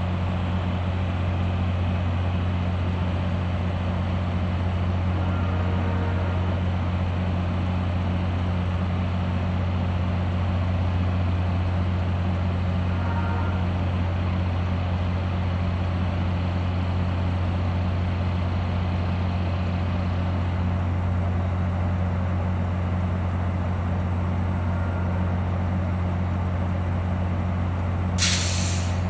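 Diesel locomotive idling at the platform, a steady low hum that does not change. A short sharp noise cuts in near the end.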